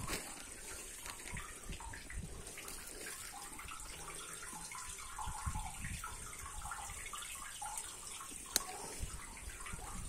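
Water trickling in a concrete valve chamber, an uneven patter, with one sharp click near the end.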